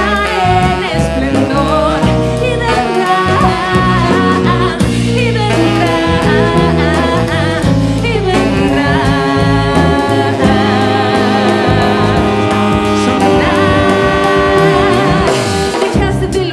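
A song: a lead singing voice with vibrato over instrumental backing.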